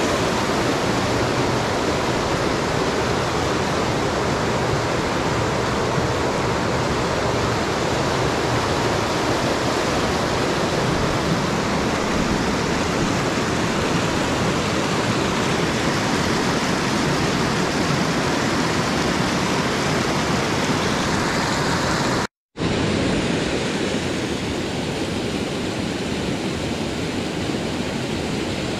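Steady rush of falling water from a mountain waterfall. It cuts out for a split second about three-quarters of the way through, then comes back a little softer and duller.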